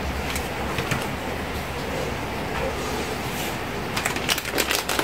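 Paper and plastic craft pieces being handled: scattered light clicks and crinkles over a steady hiss, growing busier about four seconds in.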